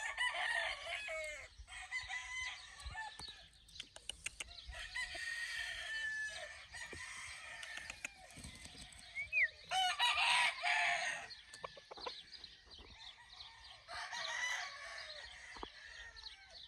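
Roosters crowing, several crows a few seconds apart, the loudest about ten seconds in.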